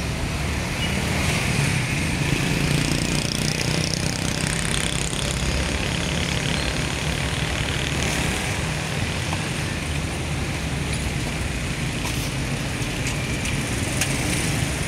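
Street traffic noise: a steady mix of vehicle engines running.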